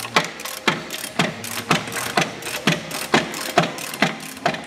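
Ratchet wrench clicking in steady strokes, about two clicks a second with fainter clicks between.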